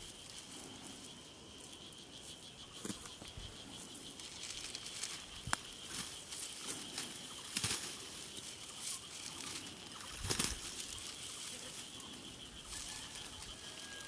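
Dry wheat stalks rustling and crackling as they are handled during hand harvesting, with sharp snaps now and then and a dull thump about ten seconds in, over a steady high whine.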